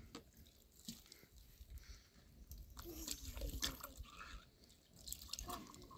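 Liquid poured from a thermos flask into a small drinking glass, with a few light clicks.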